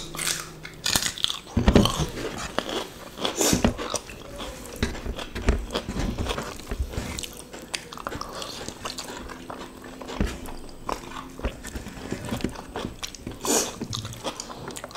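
Close-miked eating sounds of two people chewing and biting mouthfuls of rice with sardines and quail eggs in sambal, eaten by hand: wet chewing with crunching and a few sharper clicks.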